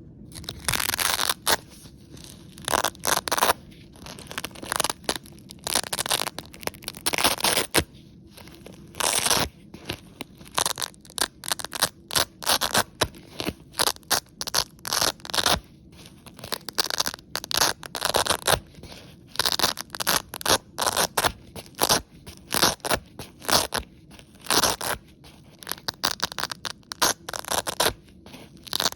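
Hook-and-loop (Velcro) strips being ripped apart again and again, each a short crunchy tearing rasp lasting a fraction of a second to about a second, with brief pauses between.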